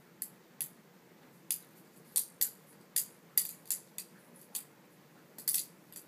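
Benchmade 51 balisong being flipped by hand: a string of sharp metallic clicks and clacks, irregular in rhythm, as the handles swing around the blade and knock together.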